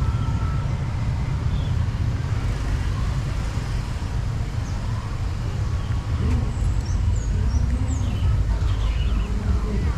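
Steady low rumble of a motorcycle ride: engine and wind noise on the microphone, with faint traffic.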